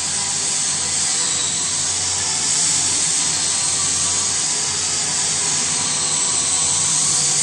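Vacuum emulsifier homogenizer mixer running: a loud, steady machine hiss over a low hum, with a few faint steady tones.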